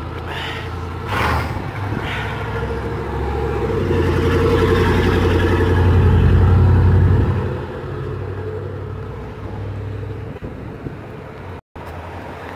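A Chevrolet Z71 pickup truck drives past close by. Its engine hum builds, is loudest about halfway through, then fades. A few short knocks come in the first two seconds.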